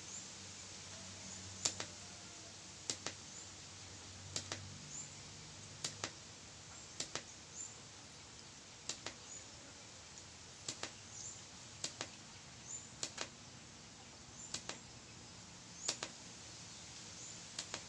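TIG welder laying a run of short tack welds on a titanium exhaust header pipe: sharp cracks at each arc start and stop, often in pairs, about one tack a second, over a steady faint hiss.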